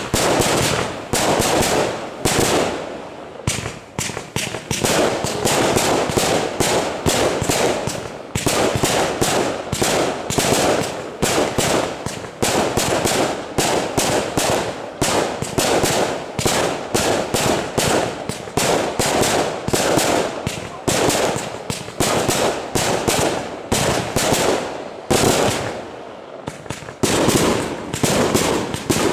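Fireworks display barrage: a rapid, continuous string of bangs, several a second, with two short lulls.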